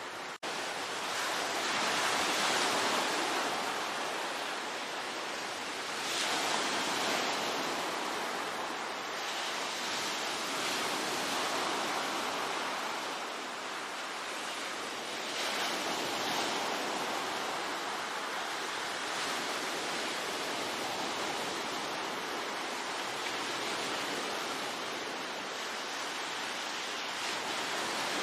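Ocean waves breaking and washing on the shore, the surf swelling and easing every few seconds. There is a momentary cut in the sound just after the start.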